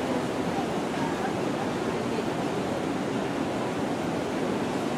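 Steady rushing background din of a busy city plaza, with faint chatter of passers-by.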